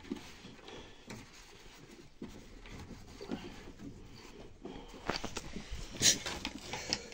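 Scattered rustling and shuffling with a few sharp knocks, the loudest about six seconds in: handling noise of someone working at a wooden animal pen and moving off.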